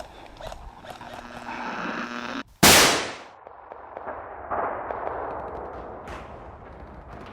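A rising whining tone that cuts off abruptly, then one loud bang about two and a half seconds in, followed by a steady hiss.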